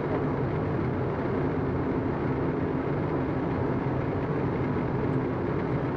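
Steady cockpit noise on the flight deck of a Boeing 777 in flight on approach: an even rushing sound with a low hum underneath, unchanging throughout.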